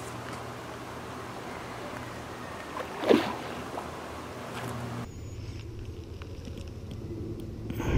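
A hooked carp splashing once at the surface beside the landing net, about three seconds in, over steady outdoor noise with a low hum.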